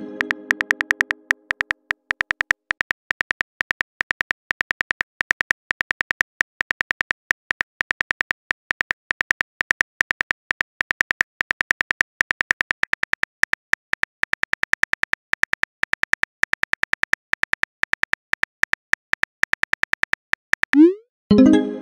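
Smartphone keyboard key clicks, rapid and even, as a text message is typed. A message chime fades out at the start, and near the end a rising whoosh and a ringing chime mark a message being sent.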